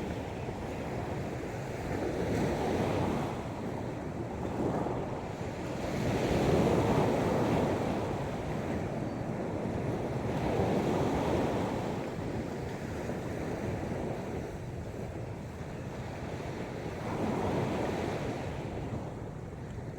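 Sea waves breaking and washing ashore, the surf swelling and fading every few seconds, with some wind on the microphone.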